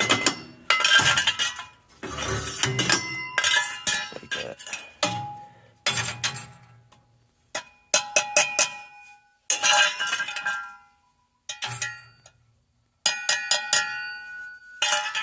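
Steel burner tubes from a Utica gas boiler clanking and scraping against the burner tray and the concrete floor as they are lifted out and set down: repeated groups of metal clinks, each with a short metallic ring, and a pause of about a second and a half near the end.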